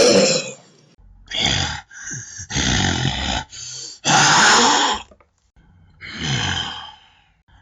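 Monster creature sound effect: a string of gruff growls and grunts, about six separate bursts of half a second to a second each, with short pauses between them. A louder roar fades out just as it begins.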